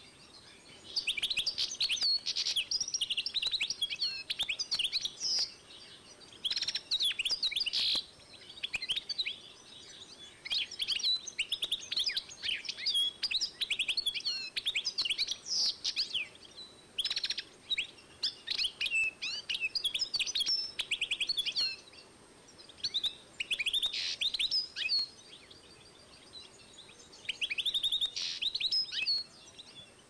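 European goldfinch × canary hybrid (goldfinch mule) singing: phrases of fast twittering notes and trills, several seconds long, broken by short pauses of a second or two.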